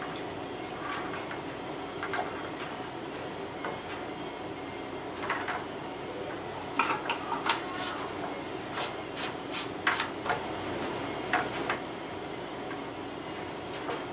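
Irregular light knocks and clicks of a thin stirring stick tapping against the inside of a plastic 5-gallon bucket of water as nutrient solution is stirred, over a steady background hum.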